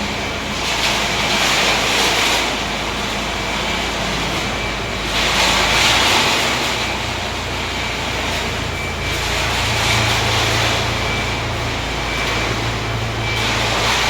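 Concrete mixer running with a steady engine hum, its turning drum giving a rushing swell about every four seconds as the load tumbles.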